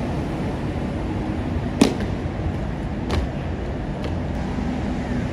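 Steady low street traffic noise, with two sharp impacts about a second and a half apart.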